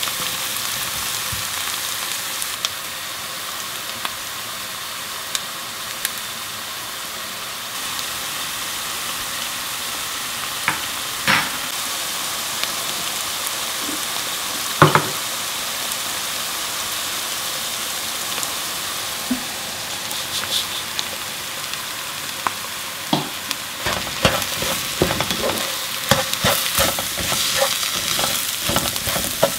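Diced onions sizzling steadily in hot oil in a nonstick pan, with a few single sharp knocks. In the last several seconds a wooden spatula stirs dry bulgur through the pan, a dense run of scraping and clicking over the sizzle.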